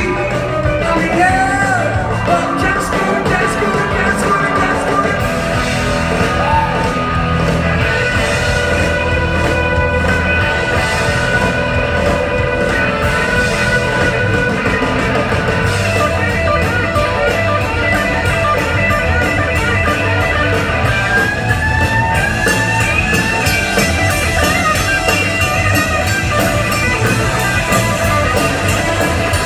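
A live rock band plays electric guitars and drums with singing, heard from the audience in the hall. From about halfway the cymbals and drums get busier.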